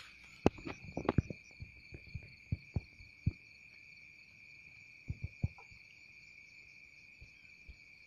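Crickets chirring steadily in a high, even drone, broken by several sharp clicks and knocks; the loudest comes about half a second in, and there is a small cluster a little after five seconds.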